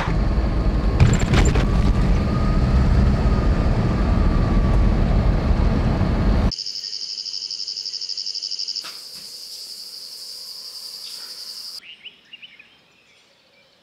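A moving vehicle's road and engine noise. About six and a half seconds in, it cuts abruptly to steady high-pitched insect chirring, which drops away near the end.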